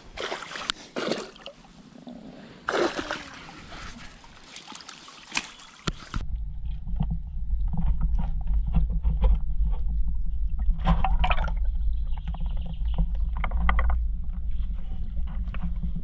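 Rustling and handling noise on the riverbank, then about six seconds in the camera goes under the river water: a steady muffled low rumble with faint bubbling clicks.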